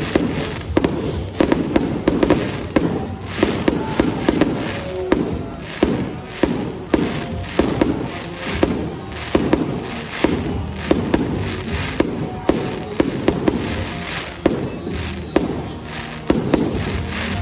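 Fireworks display: a dense, uneven string of sharp bangs and cracks, several a second, with no let-up.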